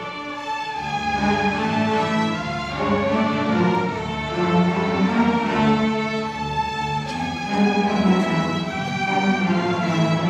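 Youth string orchestra of violins, cellos and double basses playing live, with bowed notes held and changing about every second.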